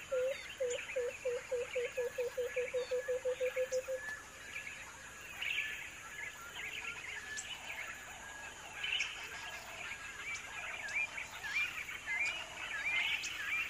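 Wild birds calling: one bird gives a run of low hoots that speed up and drop slightly in pitch, ending about four seconds in, while other birds chirp and twitter throughout.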